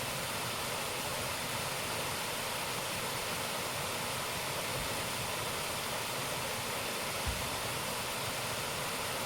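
Waterfall water rushing steadily, an even full-range roar of falling water, with one brief low thump about seven seconds in.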